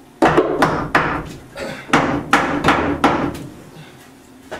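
Hammer striking a wooden framing ladder to tap it up into place under the joists: about ten quick knocks over three seconds, then it stops.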